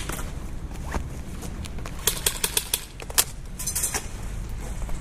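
Airsoft guns firing: sharp snapping shots, a quick run of about six shots a couple of seconds in and single shots around it, over a steady low rumble.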